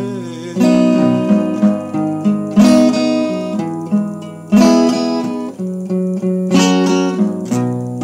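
Acoustic guitar played solo without singing: chords picked and strummed, with a hard strum about every two seconds and lighter notes between.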